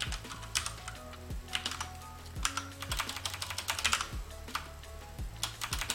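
Computer keyboard typing in quick bursts of keystrokes, with faint background music and a low beat underneath.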